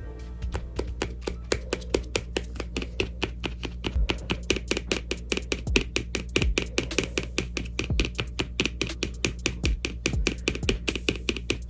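Background music: a fast, steady ticking beat, about five clicks a second, over a held low note, with a deep drum thump every couple of seconds.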